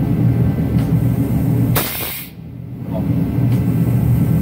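Old drop-pit jack running under load as it moves a locomotive's pilot wheelset, a steady low mechanical drone. About two seconds in there is a short sharp hiss and the drone stops for under a second, then it starts again.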